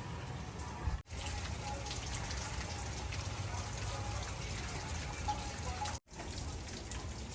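Rain falling steadily, with scattered patter of drops. The sound cuts out abruptly for a moment twice, about a second in and about six seconds in.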